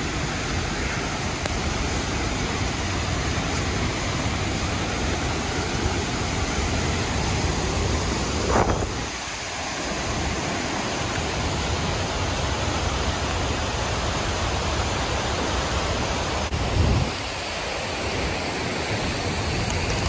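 Steady roar of rushing water from a large waterfall and the fast, swollen river below it, with some wind noise on the microphone; it dips briefly twice.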